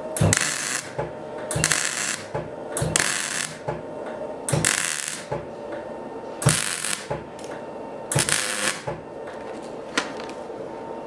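MIG welder arc crackling in six short bursts of about half a second each, one to two seconds apart, as tack or stitch welds are laid on a small steel part held in a vise.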